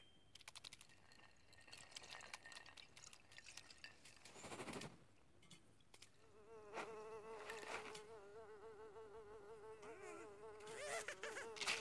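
Cartoon sound effects: light, quick pattering clicks, then from about six seconds in a steady, wavering buzz like a fly's.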